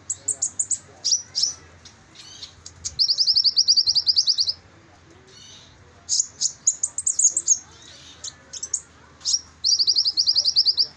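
Male kolibri ninja (Van Hasselt's sunbird) singing: high, thin chirps and twitters, with two fast, rattling trills of rapid notes, one about three seconds in and one near the end.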